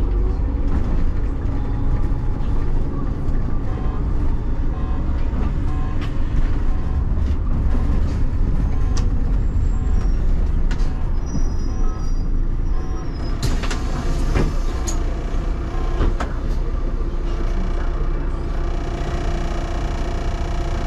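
City bus engine running and road noise while driving, heard from inside the bus, with scattered clicks and a few sharp hisses or knocks about two-thirds of the way through.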